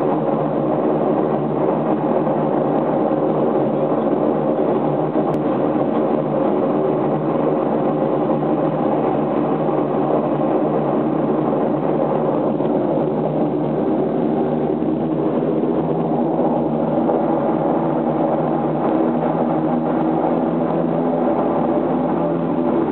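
Antonov An-24B's Ivchenko AI-24 turboprop engines and propellers running steadily on the ground, heard from inside the cabin as a loud, even drone with a layered hum of steady tones.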